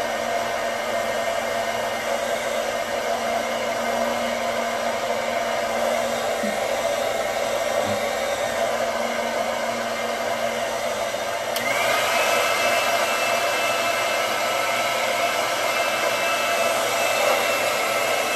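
Handheld hair dryer blowing steadily. About two-thirds of the way through there is a click, and it becomes slightly louder with a higher whine.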